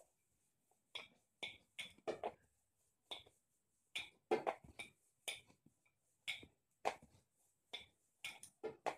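Rolling pin rolling out a round of flatbread dough on a plastic cutting board: a run of short, irregular knocks, about one or two a second.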